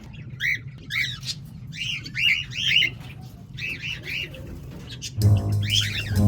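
A cockatiel chick giving a string of short, high, arched peeps, about two a second. Background music with plucked guitar and bass comes in near the end.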